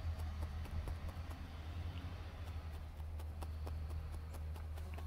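Felting needle stabbing repeatedly through wool fibre and knitted sweater into a foam pad beneath: a quick, even series of light ticks, about three or four a second, over a steady low hum.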